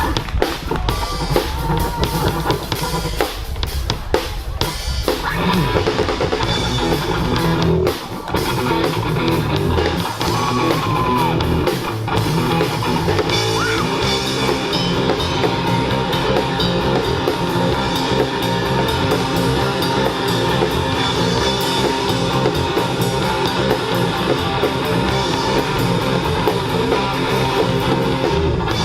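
Live rock band playing: drum kit and electric guitar with bass, loud and continuous.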